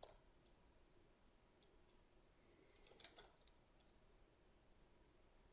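Near silence with a few faint, scattered computer mouse clicks.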